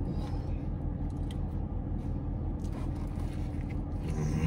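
Steady low hum of a car idling, heard from inside the cabin, with small quiet mouth and handling clicks. About four seconds in comes a louder bite into a roast beef sandwich on a soft bun, with a short low sound from the voice.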